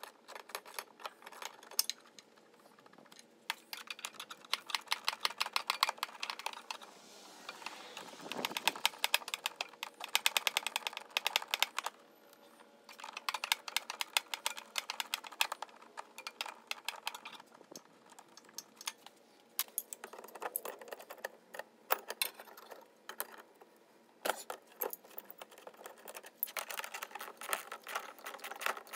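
Hand socket ratchet clicking in fast runs, several stretches of rapid clicks with short pauses between, as the small bolts around the edge of the evaporator case are backed out.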